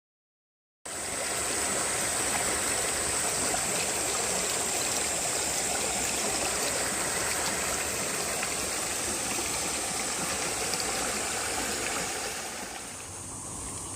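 Shallow stream babbling and trickling, with a steady high-pitched drone of summer insects above it. It starts about a second in. Near the end the water sound drops away, leaving mostly the insects.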